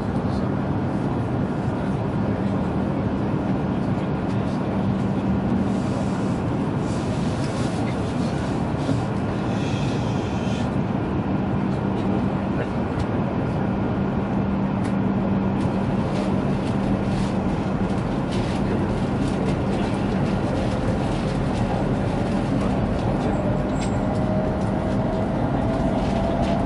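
Cabin noise inside an E7-series Shinkansen pulling away from a station and gathering speed: a steady low hum under running noise, with the traction motors' whine rising in pitch over the last few seconds as the train accelerates.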